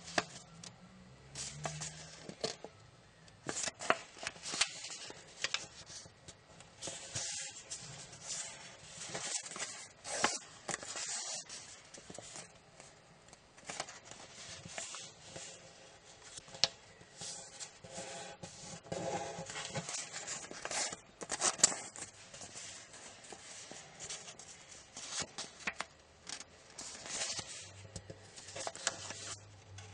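A sheet of origami paper being folded by hand: crinkling and rustling as it is turned and lifted, and scratchy rubbing as creases are pressed flat, coming in irregular bursts with a few sharper cracks.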